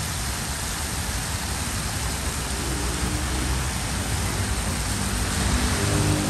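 Meat in sauce sizzling steadily on a large flat griddle, over a constant low rumble.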